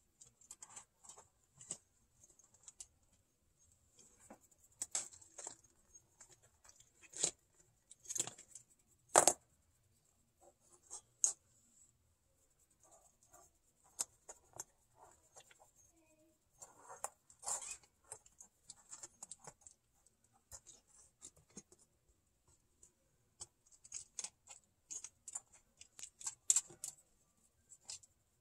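Kittens moving about on a booth floor: light scratching and pattering of paws and claws, with scattered clicks and taps as they knock coin flips and clear plastic stands around. The sharpest tap comes about nine seconds in.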